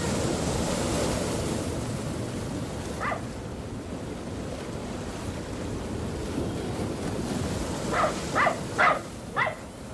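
Surf washing steadily on a beach, with a small dog barking: once about three seconds in, then four quick yaps near the end.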